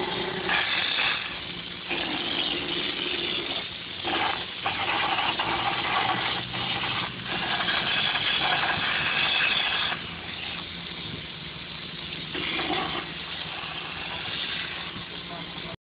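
Hopper texture gun spraying a pre-coloured hard coat with compressed air: a loud hiss in stretches, the longest about six seconds, cutting off briefly each time the trigger is let go and fainter in the last few seconds. Under it an air compressor hums steadily.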